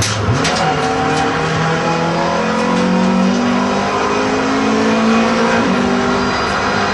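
In-car sound of a Renault Clio Cup race car's four-cylinder engine accelerating hard out of a corner, its pitch rising steadily, with a brief dip about six seconds in. A few sharp clatters right at the start.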